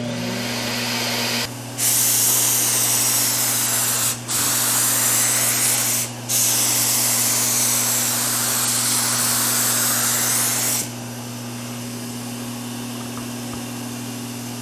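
Fuji Q5 Platinum five-stage HVLP turbine coming up to speed and running with a steady hum. Then loud hissing air from the HVLP spray gun for about nine seconds, cut twice briefly as the trigger is let off; after it stops the turbine hums on.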